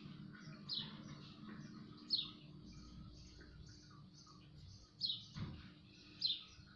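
A bird chirping in the background: short, high notes that fall in pitch, about four in a few seconds, over a faint steady hum.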